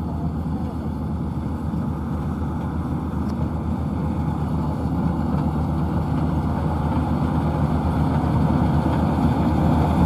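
Maxxi NDR85 combine harvester running steadily as it harvests rice, growing gradually louder as it comes closer.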